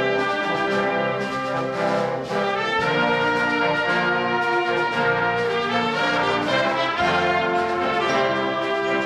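Concert band playing, with brass to the fore: held chords and moving lines of trombones, trumpets and horns over the woodwinds.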